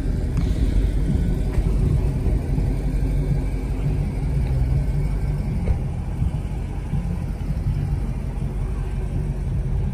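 Steady low rumble of a car's engine and road noise heard from inside the cabin while driving.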